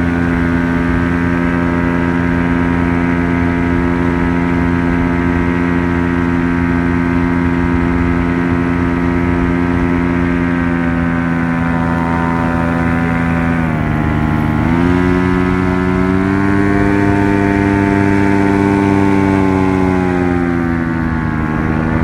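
Light aircraft's engine droning steadily, heard from on board. The engine speed drops about two-thirds of the way through, climbs back higher a second later, and eases down again near the end.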